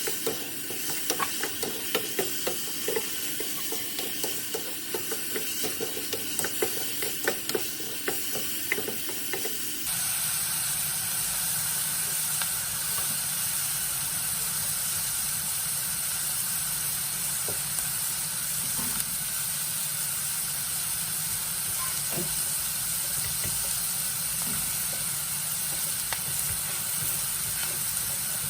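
A spoon stirring food in a pan, with quick irregular clicks and scrapes against the pan, for about ten seconds. It then changes abruptly to a steady sizzling hiss of food cooking in the pan.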